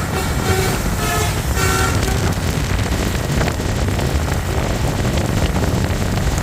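Tour bus's basuri musical telolet horn playing a quick run of short, chord-like notes for about the first two seconds, over steady engine and road noise; after that only the engine and road noise go on.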